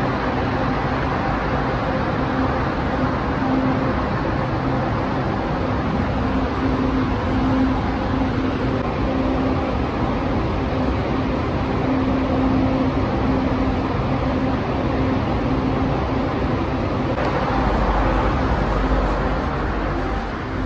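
Steady hum and hiss of an underground metro platform. About 17 seconds in it gives way to the louder low rumble of a metro train running, heard from inside the car.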